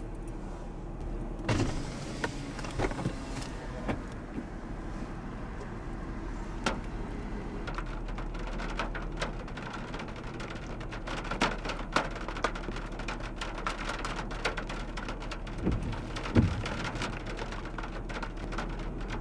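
Raindrops ticking on a car's glass and body, sparse at first and then thicker, over a steady low hum. Two louder low thumps stand out, about a second and a half in and near the end.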